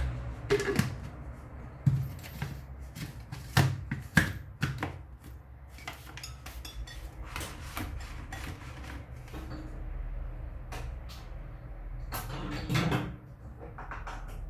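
Scattered clicks and knocks of a kitchen blender's jar and lid being handled and set in place between grinding runs of soaked raisins and sesame seeds.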